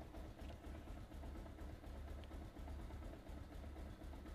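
Bajaj Pulsar 220F's single-cylinder engine idling on a cold start, a faint low, uneven thrum. The idle revs fluctuate, a long-standing idle rpm problem.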